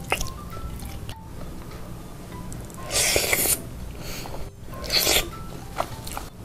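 Mukbang eating sounds from biting and chewing sauce-glazed fried chicken: two loud, crisp rasping bursts about three and five seconds in, with sharp clicks between them, over soft background music.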